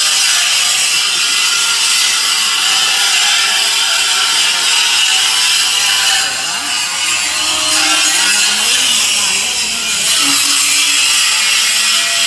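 Steady, loud grinding as a power grinding wheel runs across the bed of a stone-cutting machine to flatten it.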